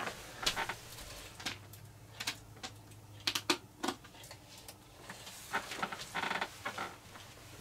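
Light plastic clicks and taps as a model railway buffer stop is handled and clipped onto the end of OO gauge track, with a cluster of sharp clicks a little over three seconds in as it is pressed into place.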